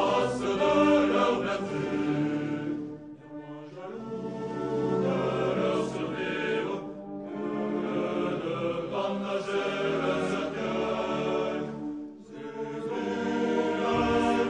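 Slow choral music: voices holding long, sustained chords in phrases, with brief breaks between phrases.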